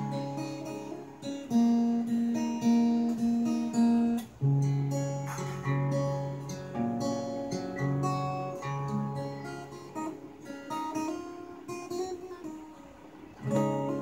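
Acoustic guitar and sitar playing a melody together, plucked notes ringing and fading one after another.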